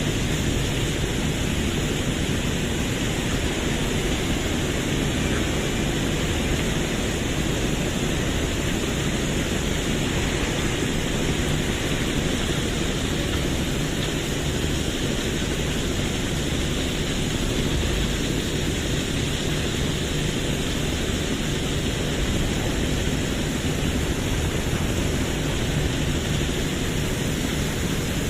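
Heavy diesel machinery, likely the excavator unloading the sand, running steadily with a low rumble and an even hiss that stays the same throughout.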